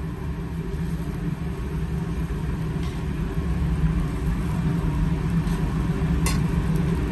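A steady low rumble that builds slightly, with a single sharp click about six seconds in.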